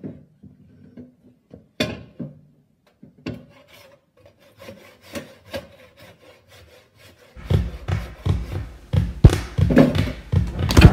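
Wooden branches knocking and shifting in a metal wheelbarrow, then a hand saw cutting a branch in quick, even back-and-forth strokes, about three a second. The sawing starts a little past halfway and is much louder than the knocks before it.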